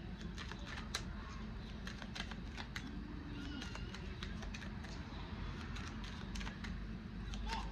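A deck of cards shuffled by hand, overhand, the cards flicking and slapping against each other in quick, irregular clicks.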